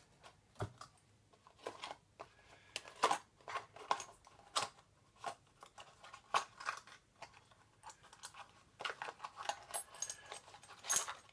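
Packaging being opened and handled by hand: irregular crinkles, rustles and small clicks.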